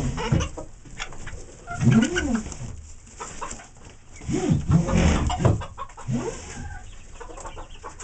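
Chickens clucking, with several low, arching calls of about half a second each, about two seconds in and again midway through.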